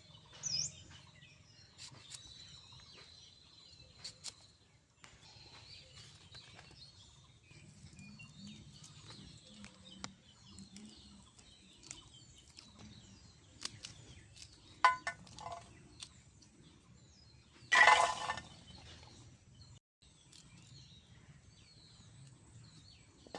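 Small birds chirping and twittering outdoors, with scattered sharp clicks of a knife cutting vegetables. A brief louder noise comes about 18 seconds in.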